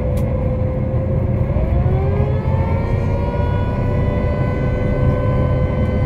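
Propeller-driven aerosled (aerosani) running at speed over sea ice: a loud, steady engine-and-propeller drone whose pitch climbs a little about two seconds in.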